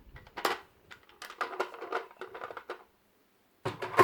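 Connetix plastic magnetic tile pieces being handled: a run of light clicks and rattles, a short pause, then a sharper clack near the end, the loudest sound.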